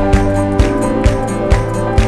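Background music with a steady beat of about two strokes a second under sustained chords.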